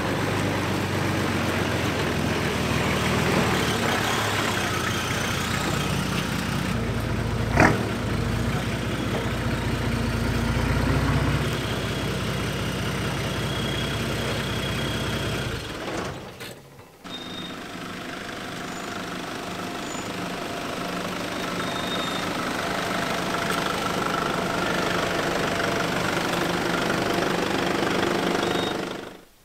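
Four-wheel-drive wagon engines running as the vehicles crawl slowly over a dirt bush track, with a single sharp knock about eight seconds in. The sound drops away briefly about halfway through, then the engine running resumes and slowly grows louder.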